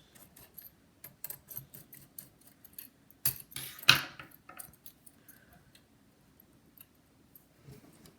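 Small hard clicks and rattles of laptop parts being handled with a tool. A louder scraping clatter comes about three to four seconds in.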